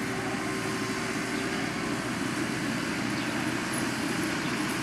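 Compact tractor's engine running steadily under load as it tows a single-wide mobile home.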